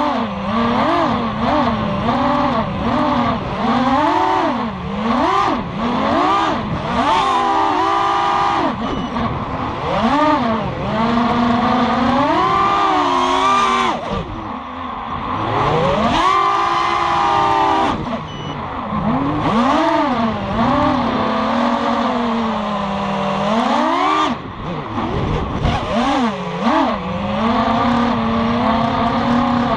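FPV racing quadcopter's four Lumenier 2204 2300kv brushless motors spinning three-blade props, whining in pitch that swoops up and down constantly as the throttle is punched and cut through flips and dives, over a steady rush of air.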